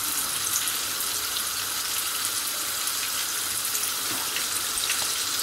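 Flour-coated chicken pieces frying in hot oil in a pan: a steady sizzling hiss with small scattered crackles.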